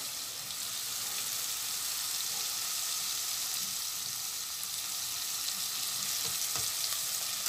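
Chicken, onion and garlic sizzling steadily in olive oil in a pot, with a wooden spoon stirring through the spices.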